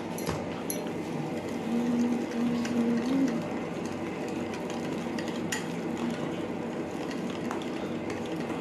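Thick cake batter being stirred and scraped in a bowl, with a few light clinks of the utensil against the bowl.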